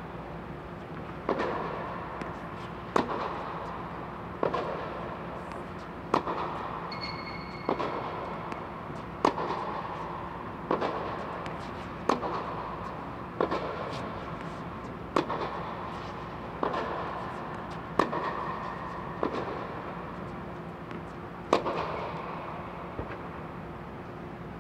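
Tennis ball being hit back and forth in a rally: a sharp pock off the racket strings about every one and a half seconds, each echoing briefly in the indoor court, over a steady low hum.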